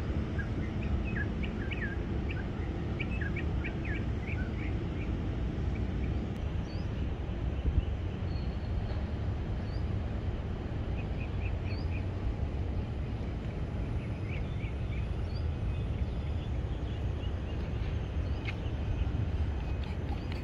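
Outdoor ambience: a steady low rumble with small birds chirping in short runs, a couple of times a few seconds in and again around the middle.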